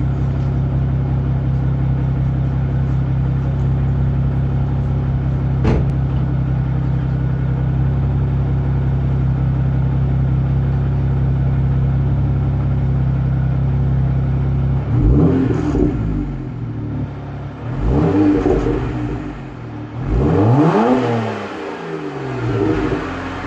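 BMW 1M Coupé's stock twin-turbo inline-six with the factory exhaust, idling steadily, with a single click about six seconds in. From about fifteen seconds in it is revved in short blips, the pitch rising and falling each time, with a fourth blip starting at the end.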